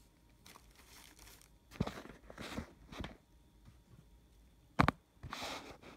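Rustling and crinkling of fabric, foam and wiring as a hand rummages inside the suit's electronics compartment, in a few short scratchy bursts, with one sharp knock about five seconds in.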